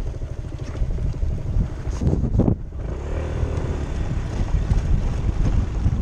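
Honda SH300i scooter's single-cylinder engine running at low speed under heavy wind rumble on the microphone, with a brief louder rush about two seconds in.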